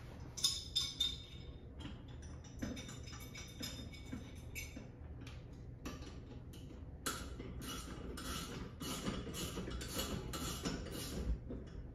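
Small metal clicks and clinks of a wrench working a nut as the crank handle is fitted to a hose reel, coming more regularly, about two or three a second, in the second half.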